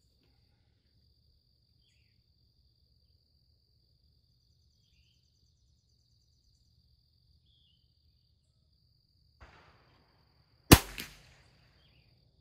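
A single shot from a Christensen Arms Ranger bolt-action .22 LR rifle firing standard-velocity ammunition, near the end after a long quiet stretch, with a short ringing echo.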